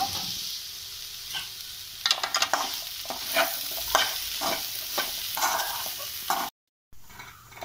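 Elephant foot yam cubes frying dry in oil in an aluminium kadai, with a steady light sizzle, while a steel spoon stirs them, scraping and knocking against the pan in a quick run of strokes from about two seconds in. The stirring keeps the yam from catching on the bottom of the pan. The sound drops out briefly near the end.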